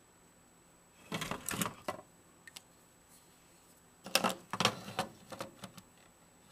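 Rapid plastic clicking and scraping as a plastic tube is handled against the wall of a clear plastic case, in two short bursts: about a second in and about four seconds in.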